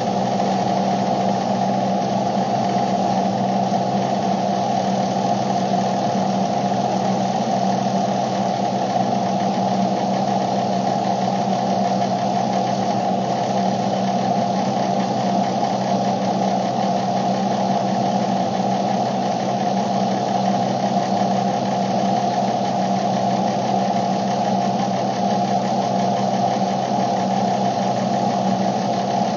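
A car running, heard inside its cabin: a steady, unchanging hum with a held mid-pitched tone that stops right at the end.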